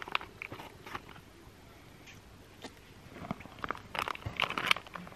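Freeze-dried meal pouch crinkling and rustling as a long plastic spoon stirs the pasta bolognese inside, soaking in hot water; a few crackles at the start, then a denser burst of rustling and scraping from about three seconds in.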